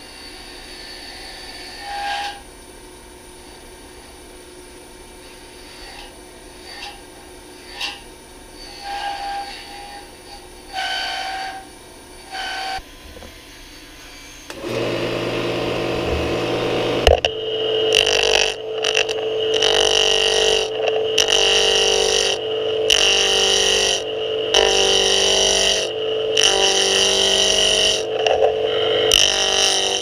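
A few short handling knocks and clicks while the pen blank is set up on the wood lathe. About halfway through the lathe motor starts and runs with a steady hum, and soon after a turning tool cuts the spinning wooden pen blank with a loud, uneven scraping.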